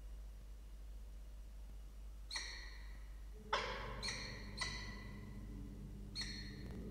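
Peregrine falcons calling: five short, clear calls, two close together about halfway through and a last one near the end, over a low steady hum.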